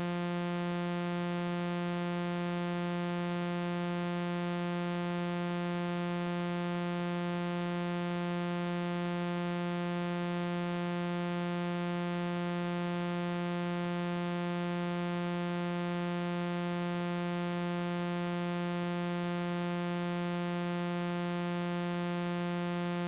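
A single electronic buzz tone, a low synthesized note rich in overtones, held steady without any change, with a hiss behind it.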